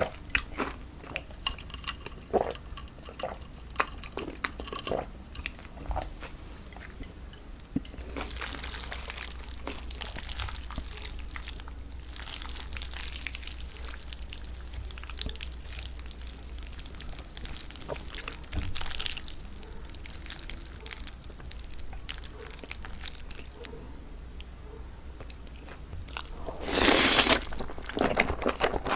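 Close-miked eating: chewing and crunching with scattered small clicks, and a brief louder noisy sound near the end.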